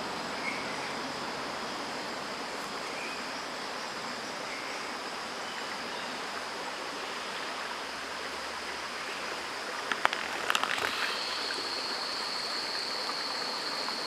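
Rainforest ambience: a steady even rushing hiss with a continuous high insect drone, which grows louder about eleven seconds in. A short cluster of clicks about ten seconds in.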